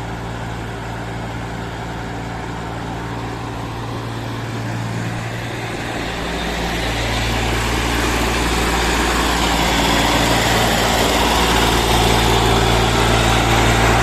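Heavy diesel machinery engine running steadily, growing louder from about halfway through.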